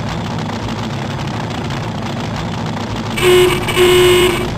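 Car horn sounding twice near the end, a short toot then a longer one, over a low steady rumble.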